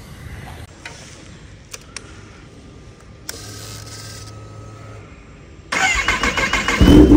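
Kawasaki ZX-10R inline-four cold start: a few faint clicks and a short steady hum, then the starter cranks for about a second and the engine catches near the end, running loudly.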